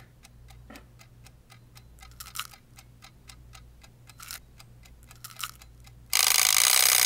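Twin-bell wind-up alarm clock ticking, about four ticks a second, then its bell ringing loudly from about six seconds in.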